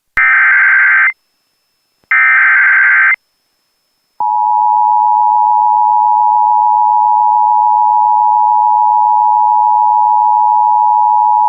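Emergency Alert System signal for a severe thunderstorm warning: two one-second bursts of digital header data tones, then, about four seconds in, a loud steady single-pitch attention tone that holds on.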